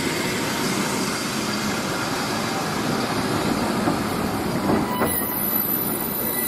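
Passenger coaches rolling past on the rails with a steady rumble and hiss of wheels. A thin, high squeal from the wheels and brakes joins in about five seconds in.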